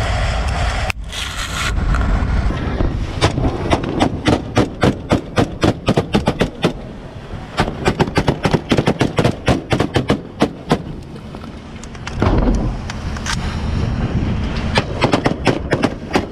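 Rapid gunfire: long strings of shots at about five a second, with short breaks, including one of about two seconds near the end, over the steady rumble of a boat's engine.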